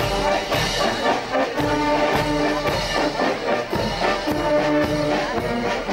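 Marching brass band playing a march: tubas, horns and trumpets sound sustained chords over a steady bass-drum beat.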